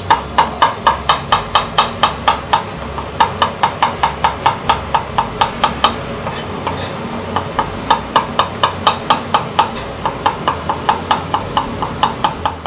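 A kitchen knife thinly slicing button mushrooms on a wooden cutting board: quick, even knocks of the blade on the board, about five a second, in three runs broken by two short pauses.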